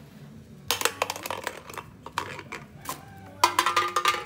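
Rapid metallic clattering and clinking in two bursts, one about a second in and a ringing one near the end, like dishes or cutlery being handled.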